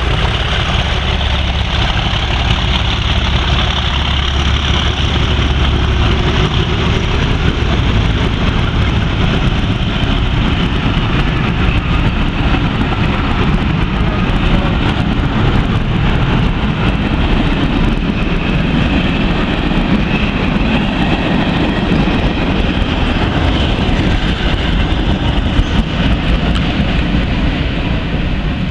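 Class 37 diesel locomotives' English Electric V12 engines working as the train pulls out, a steady low drone strongest in the first few seconds. The passing coaches' wheels rumble on the rails throughout.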